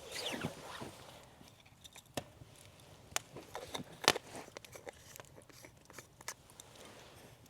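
Wood campfire crackling quietly, with a few sharp pops about a second apart and a short falling squeak at the start.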